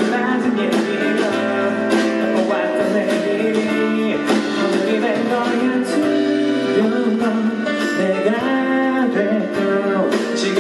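Live solo performance: a steel-string acoustic guitar strummed in a steady rhythm while a man sings into a microphone.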